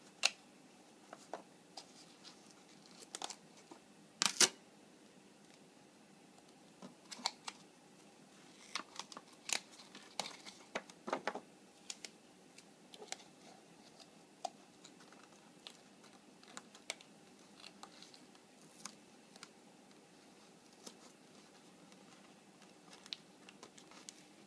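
Black masking tape and brown paper being handled and pressed onto a cardboard toilet roll: scattered crinkles, tape crackles and sharp clicks, the sharpest about four seconds in and a cluster around ten seconds in.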